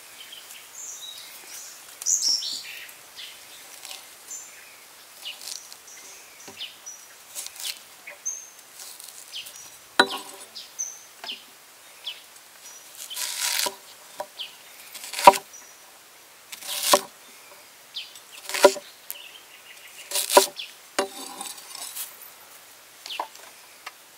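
Heavy cleaver chopping a whole onion on a wooden chopping block, a chop about every one and a half to two seconds from about ten seconds in. Birds chirp faintly in the first part.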